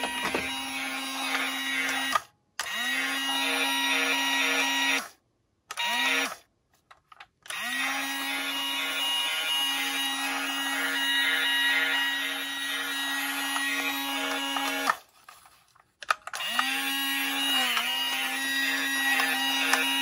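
A battery-operated toy police car's sound unit playing a steady buzzing electronic tone through its small speaker. The tone swoops up quickly each time it starts, and it cuts off and restarts about four times.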